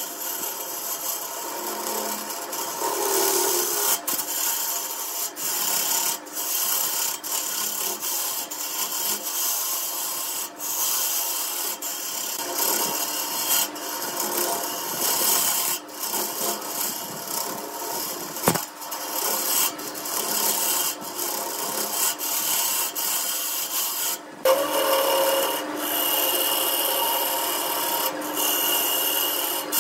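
A turning tool cutting a spinning wood-and-epoxy-resin blank on a wood lathe: a steady hissing, rasping shear as long shavings peel off. A few short breaks come where the tool eases off, and there is one sharp click about two-thirds of the way through.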